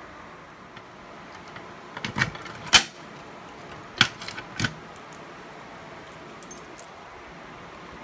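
Sharp metallic clicks and clacks of a Simplex manual fire alarm pull station being worked by hand. There is a cluster of them a little after two seconds in and another around four seconds in, the loudest near the three-second mark.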